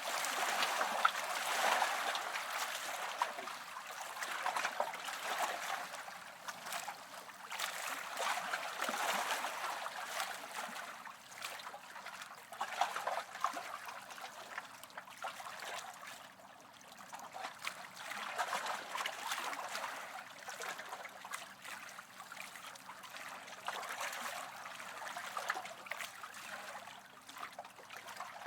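Small waves washing and lapping on a shore, the water swelling and falling back every few seconds.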